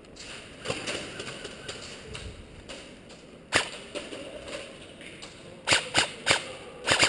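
Airsoft electric rifle (AEG M4A1) firing single shots on semi-auto: one sharp crack about halfway through, then a quick run of four or five shots about a third of a second apart near the end.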